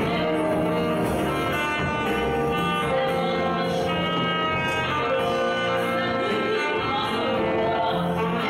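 Live church worship music: a woman singing a slow praise song into a microphone, with backing singers and band accompaniment in long held notes.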